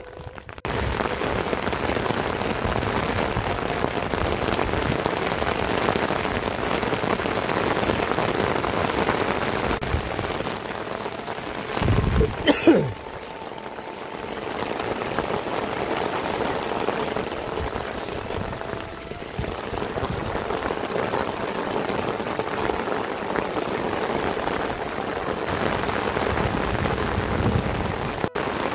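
Heavy rain falling steadily, a constant hiss. About twelve seconds in, a brief loud rumbling thump breaks in, and the rain then carries on a little quieter.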